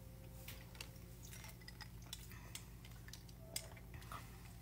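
Faint, irregular clicks and taps of a clear straw stirring a glass of Mountain Dew and orange juice, with a short sip through the straw near the end.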